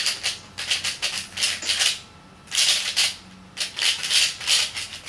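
Moyu LiYing 3x3 speedcube being turned fast during a solve: bursts of rapid plastic clicking and clattering, each about a second long, broken by short pauses.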